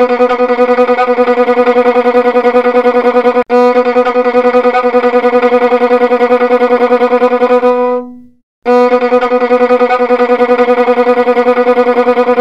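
Violin bowing one held note, with a brief break about three and a half seconds in and a short pause about eight seconds in before the same note sounds again.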